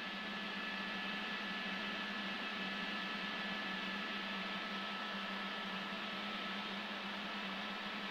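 Steady helicopter cabin noise picked up by an open microphone: an even hiss with a low hum and a few faint, steady high tones.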